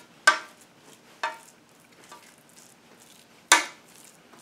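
A metal utensil clinking against a baking pan three times while thick, wet cornbread dressing is spooned and spread in it, with soft scraping between the strikes.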